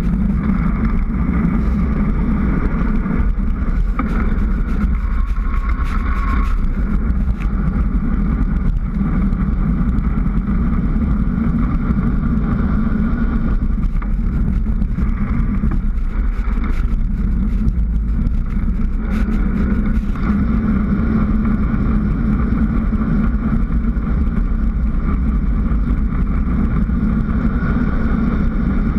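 Wind rushing over a bike-mounted GoPro's microphone on a fast downhill road descent: a loud, steady roar.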